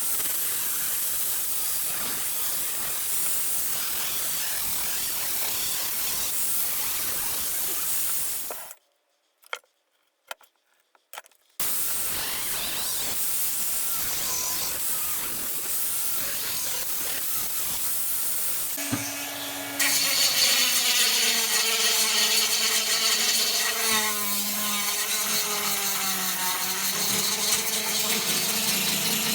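Tools working a rusty steel handsaw during restoration. A steady hissing scrape runs for about eight seconds, then breaks off for a few seconds with only a few clicks, then resumes. About two-thirds of the way in it gives way to a louder powered tool running with a wavering whine.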